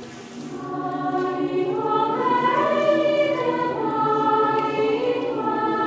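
Mixed choir of teenage girls and boys singing long held notes together, growing louder over the first two seconds and staying full.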